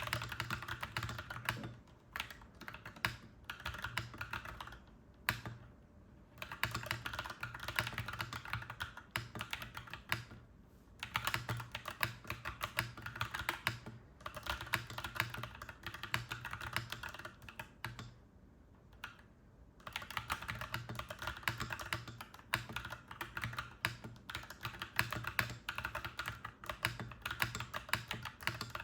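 Clacky mechanical keyboard being typed on, in fast runs of keystrokes lasting several seconds with brief pauses between them.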